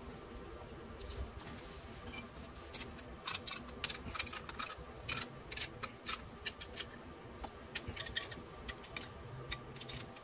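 Metal hand tools clicking and clinking against a metal coolant fitting on the engine: a quick, irregular run of light ticks that starts about two and a half seconds in.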